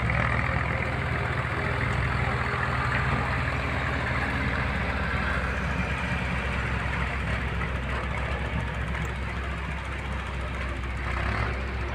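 Heavy diesel engine running steadily at an even, low pitch, with a haze of mechanical noise above it.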